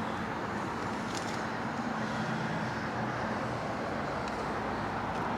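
Steady vehicle noise: a low hum under an even hiss, with a few faint ticks.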